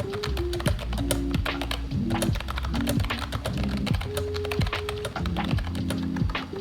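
Typing on a retro typewriter-style wireless keyboard: a steady run of quick, irregular key clicks, several a second, over background music.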